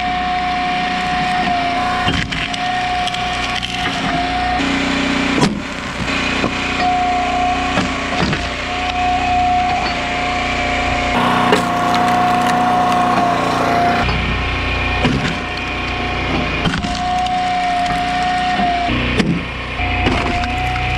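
Hydraulic log splitter running steadily, its ram driving oak pieces onto the wedge so the wood cracks and splinters. There are several sharp cracks, and a high whine in the machine's drone breaks off and returns several times.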